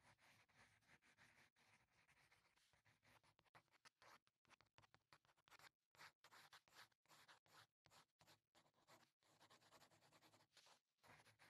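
Very faint scratchy coloring strokes on paper, quick and irregular, with a few short pauses midway.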